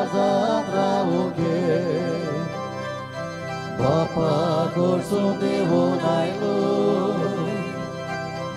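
Church hymn: a singing voice wavering in pitch over sustained organ chords, the music sung while Holy Communion is given at Mass.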